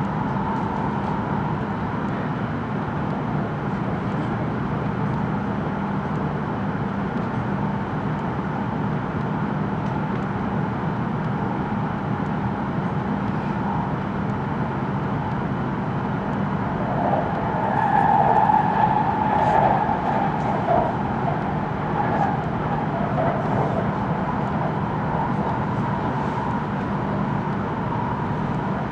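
Steady running noise of an E5 series Shinkansen at speed, heard inside the passenger cabin: a constant low hum under an even rushing noise. It swells louder for a few seconds past the middle, then settles back.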